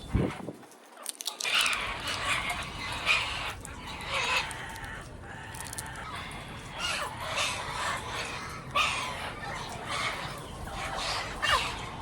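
Turquoise-fronted amazon parrots chattering and squawking, a run of short repeated calls, some sliding up or down in pitch.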